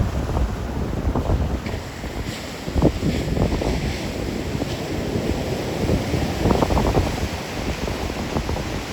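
Rough storm surf breaking on a rocky beach, a continuous wash of surf, with gusty wind buffeting the microphone in low rumbles.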